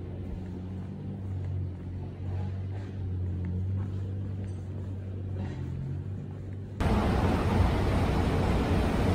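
Low, steady outdoor rumble while walking. About seven seconds in it switches abruptly to a louder, steady rushing noise with a low hum, the sound at a running escalator.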